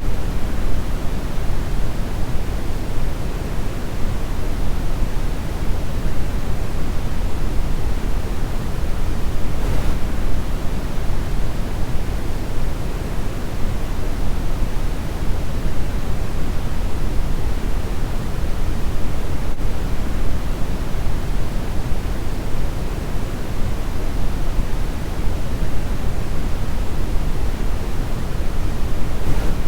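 Synthetic brown noise: a steady, even hiss with most of its energy deep in the low end, unchanging throughout.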